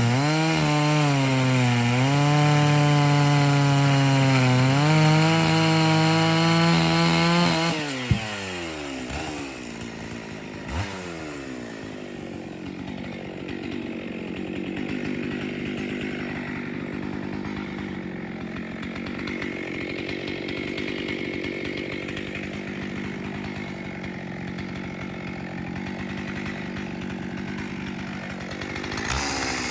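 Chainsaw cutting wood under load, its engine pitch sagging and recovering. About eight seconds in it drops back to a steady idle, then revs up again at the very end.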